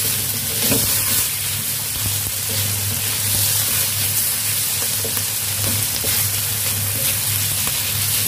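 Beef and sliced salted mustard greens sizzling steadily in oil in a stainless steel wok, with a wooden spatula stirring and scraping the pan now and then.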